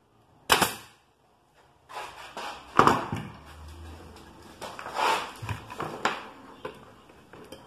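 Makita AF505 pneumatic pin nailer firing into MDF cabinet panels, a sharp shot about half a second in, amid knocks and handling of the boards as they are held in place. A brief low hum sounds in the middle.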